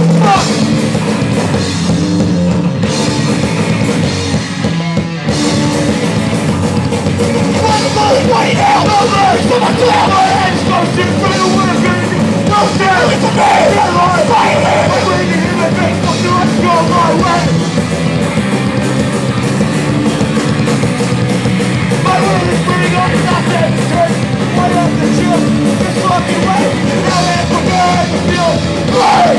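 Live rock band playing loud in a small club: electric guitars, bass and drums, with a vocalist singing into a microphone. It dips briefly about four seconds in.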